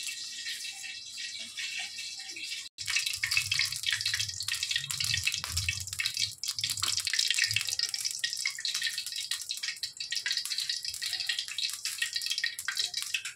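Oil heating in a steel kadai, giving a steady crackling sizzle full of tiny pops, with a low rumble underneath. It starts abruptly about three seconds in, after a quieter stretch of onion being sliced with a knife.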